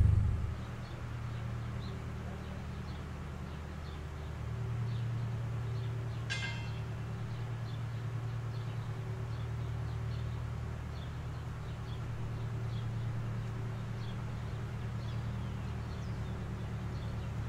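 An engine idling steadily with a low hum, with small birds chirping faintly and one brief, sharper bird call about six seconds in.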